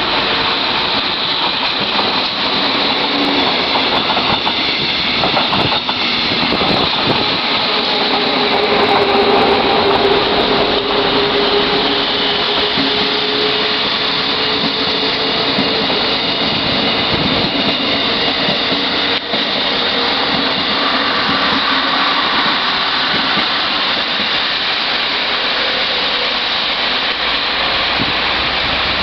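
Regional trains pulling out of a station: a class 628/928 diesel multiple unit rolls past close by, its wheels running on the rails under a steady mechanical hum, loudest about a third of the way in. A class 143 electric locomotive with a double-deck regional express departs alongside.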